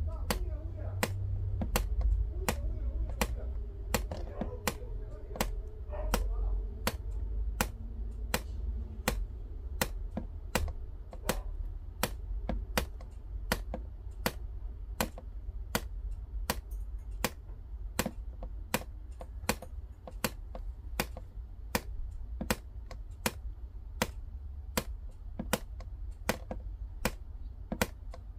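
Sharp, evenly spaced ticks, about two a second, over a steady low background rumble.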